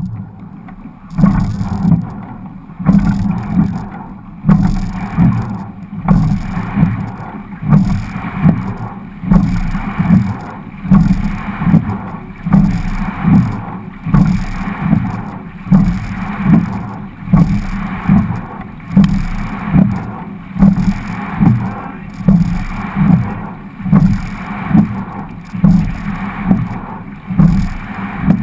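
Racing quad scull rowed hard from a standing start: water rushing along the hull with a rhythmic surge and thump on each stroke. The first few strokes are spaced out, then they come a little under a second apart, with wind on the microphone.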